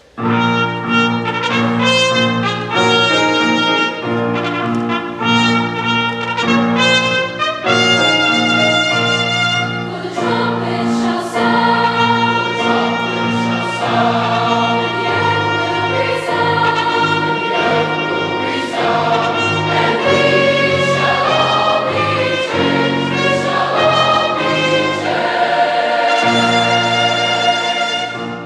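Mixed youth choir singing with instrumental accompaniment, the music starting suddenly at full volume and carrying on without a break.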